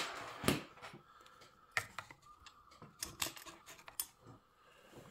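Light metal clicks and taps of needle-nose pliers and a cylinder bolt against a Stihl MS460 chainsaw's cylinder and crankcase as the bolt is worked into place: one sharper click at the very start, then a handful of fainter ones spread out.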